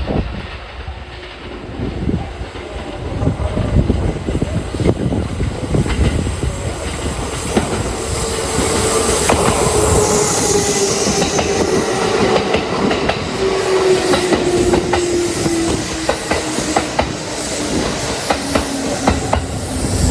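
Six-car Kintetsu 2610-series and 2410-series electric train running past, its wheels clacking over rail joints in a steady run of knocks. Over the second half a humming tone slowly falls in pitch.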